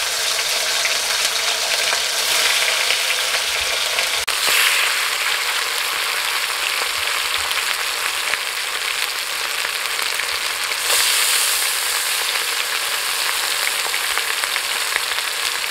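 Marinated chicken leg pieces sizzling as they fry in hot refined oil and ghee in an aluminium karahi. The sizzle is steady and grows louder about four seconds in and again about eleven seconds in, as more pieces go into the oil.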